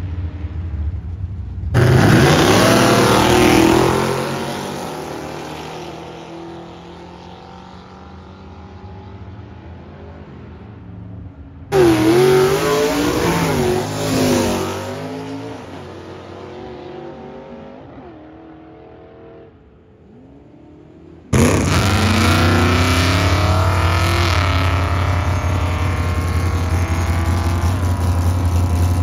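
Drag cars running down a drag strip, heard in three runs in turn. Each time a loud engine comes in suddenly at hard throttle, its pitch climbing and dropping as it pulls away and fades. The last run starts about two-thirds in and stays loud.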